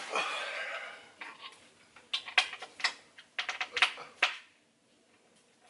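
A quick irregular run of sharp clicks and knocks lasting about two seconds, from the plastic and metal parts of a gaming chair being handled and fitted together during assembly, after a short pitched sound at the start.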